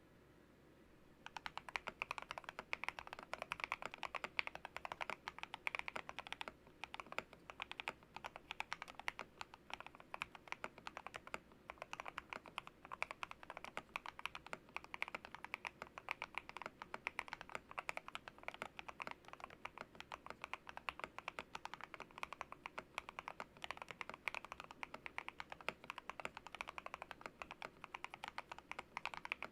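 Fast continuous typing on an RK100 mechanical keyboard with lubed Ajazz Peach switches and Cherry-profile keycaps, dampened by tape, foam and bandage-wrap mods, starting about a second in. Many rapid keystroke clacks overlap.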